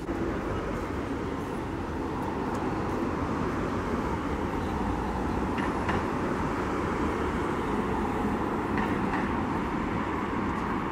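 Steady vehicle noise: an even, continuous rumble with a hiss above it and a few faint ticks.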